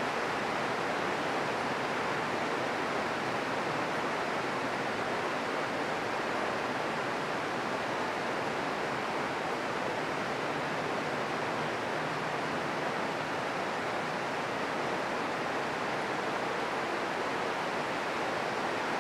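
Steady rain falling on leaves and foliage: an even hiss with no single drops standing out.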